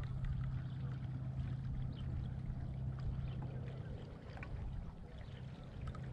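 Steady low hum of the bass boat's motor, easing for a moment past the middle, over a low rumble with faint scattered ticks and lapping.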